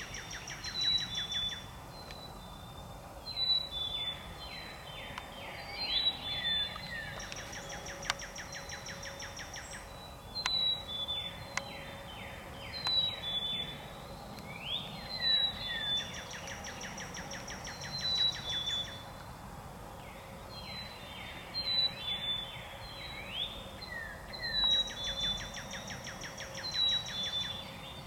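Songbird singing, the same phrase of quick falling notes and a high thin trill repeated about every two and a half seconds, over a steady background hush.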